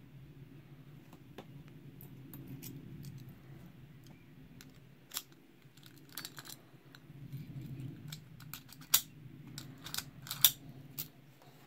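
Small metallic clicks and scrapes of a key or pick working in the keyway of a Burg Wächter Circle 21/60 stainless-steel disc padlock. The clicks come more often about halfway through, with the sharpest ones in the last few seconds, over a low steady hum.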